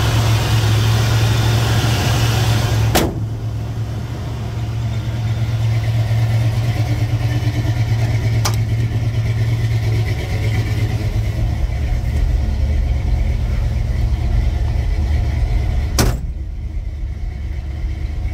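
Ford Bronco's Cleveland V8 idling steadily, with three sharp clicks in between; after the first and last click the sound drops slightly quieter.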